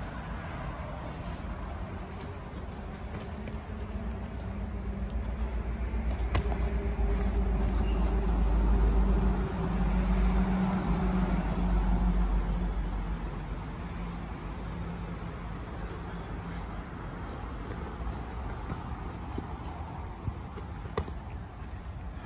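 Crickets trilling in a steady, high, unbroken chirp. Underneath, a low rumble with a hum builds, is loudest around the middle and then fades away. A few faint clicks stand out.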